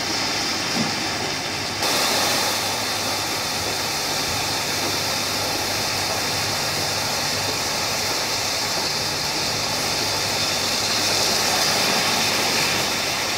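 Rushing floodwater of a swollen river: a steady, loud roar, louder and brighter from about two seconds in.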